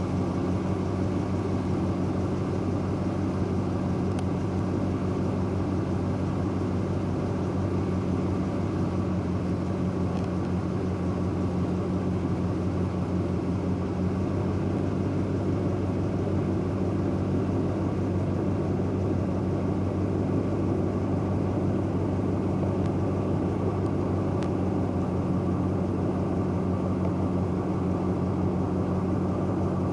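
Steady low vehicle rumble with a constant low hum and even road noise, unchanging throughout.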